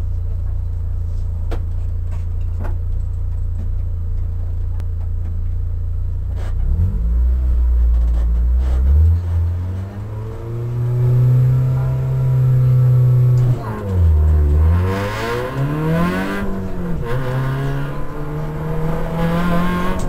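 Peugeot 106 rally car's engine heard from inside the cabin. It idles steadily, is revved up about seven seconds in, then pulls away under hard acceleration, rising in pitch through the gears with upshifts about thirteen and a half and seventeen seconds in.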